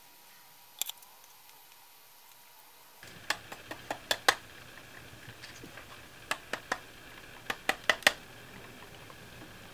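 Plastic housing halves of a clamp-on current probe clicking and knocking against each other in short runs as they are handled and shaken. No rattle from the sought loose part comes with them: opened, the probe no longer rattles.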